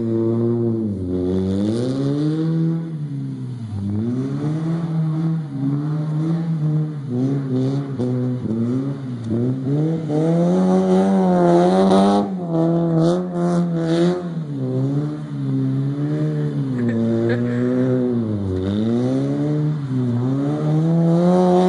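Small car's engine revving up and down over and over as it drifts in circles on grass, the pitch climbing and dropping every couple of seconds. A few brief scraping bursts come about halfway through.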